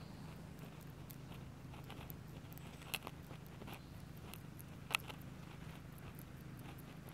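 Faint rustling and crackling of dry leaf litter and twigs as an American shrew mole roots through it for food, with two sharper clicks about three and five seconds in.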